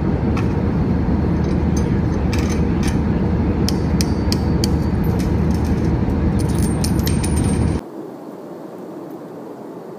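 Airliner cabin noise: a loud steady rumble with scattered clicks and rattles. It cuts off abruptly about eight seconds in, leaving a much quieter steady hum.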